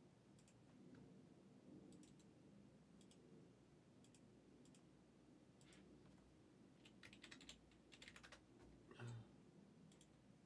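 Faint computer keyboard typing and mouse-style clicking, in short scattered runs of keystrokes.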